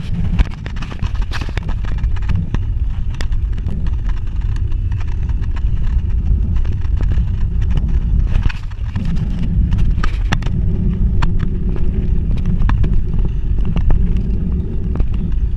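Bicycle riding along a paved road, heard from a bike-mounted camera: a steady low rumble of wind and tyre noise on the microphone, with scattered clicks and rattles.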